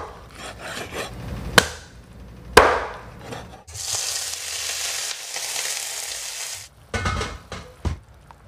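A cleaver chopping raw chicken on a wooden chopping block, two sharp chops about a second apart. Then food tipped into hot oil in a wok sizzles steadily for about three seconds, and near the end a ladle knocks against a metal soup pot.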